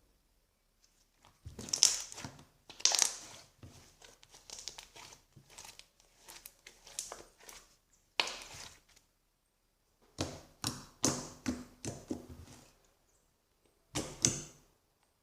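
Homemade white-glue slime being squeezed and stretched by hand, giving irregular bursts of crackling and popping, with a short pause shortly before the end.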